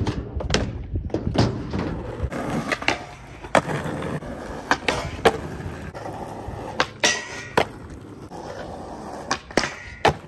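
Skateboard rolling over rough ground, with repeated sharp clacks of the board and wheels hitting and landing. A short grind on a metal flat bar comes near the end.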